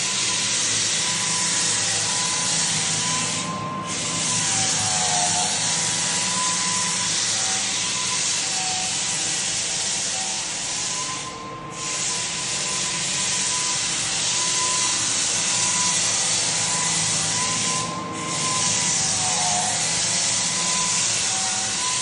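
A steady hiss, with faint wavering tones underneath, briefly dipping three times about seven seconds apart.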